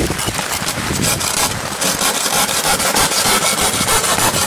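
Hand saw cutting through a hard construction-plywood offcut: repeated back-and-forth rasping strokes of the blade in the wood.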